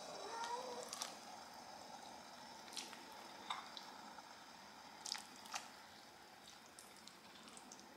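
Wooden spoon scooping soft roasted squash and dropping it into broth in an enamelled cast-iron pot: faint wet squishes and plops, with about five sharp ticks of the spoon against the bowl and pot.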